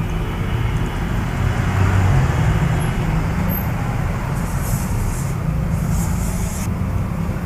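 Two short hisses of an aerosol chain cleaner being sprayed onto a motorcycle chain, each about a second long and starting about halfway through. Under them runs a steady low rumble.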